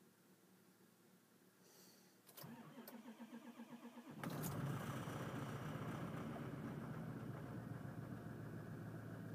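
Ford 6.0 Powerstroke V8 turbo-diesel cold-started from inside the cab: the starter cranks it in a quick pulsing rhythm for about two seconds, then it catches and settles into a steady fast idle.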